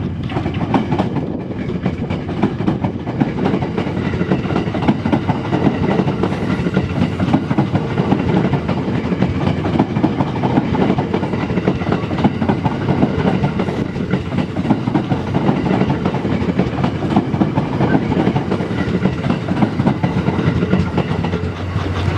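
A train passing through the station, its wheels clattering continuously over the rail joints.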